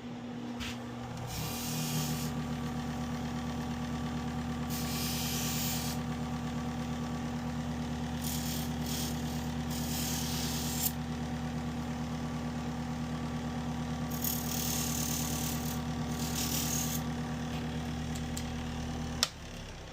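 Electric buffing machine running steadily while a fabric-shear blade is pressed to the buff in about five short passes, each a brief hiss over the motor's hum. The motor is switched off with a click near the end.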